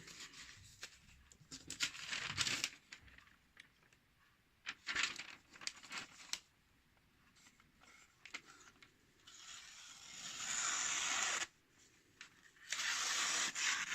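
Freshly sharpened knife slicing a sheet of paper in several separate cuts, with paper rustling between them: a paper test of the edge's sharpness. The longest cut lasts about two seconds, a little past the middle.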